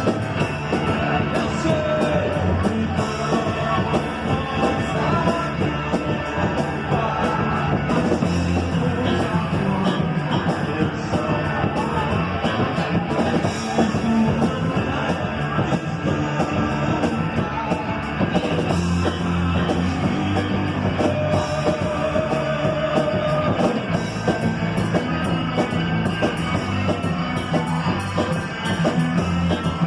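Rock song with a singing voice, guitar and drums, played loud and steady through a sound system.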